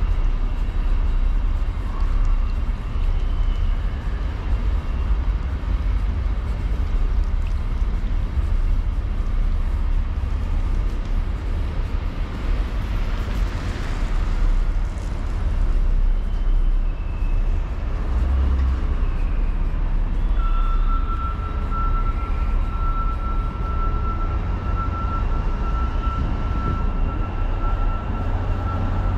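Downtown street traffic: a steady low drone of vehicles, with one passing closer about halfway through. A single steady high tone comes in about two-thirds of the way through and holds to the end.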